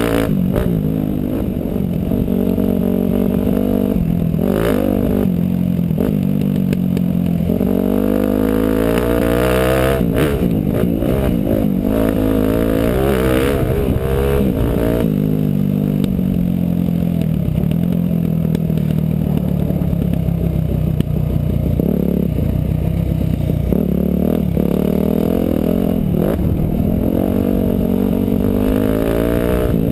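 Motorcycle engine running under way, its revs rising and falling again and again with the throttle, with a few brief knocks.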